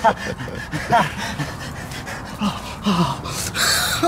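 A man's short grunts and gasps, with a brief burst of rustling near the end.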